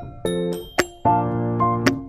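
Background music: two piano-like keyboard chords struck and left to ring, with sharp high clicks between them.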